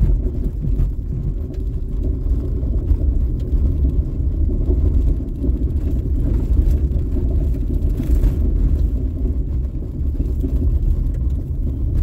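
Car driving on a rough gravel road, heard from inside the cabin: a steady low rumble of tyres and engine, with a few faint scattered ticks.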